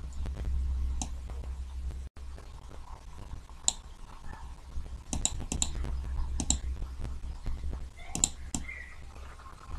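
Scattered clicks of a computer mouse: single clicks, a quick run of three about halfway through and a short cluster near the end, over a steady low hum.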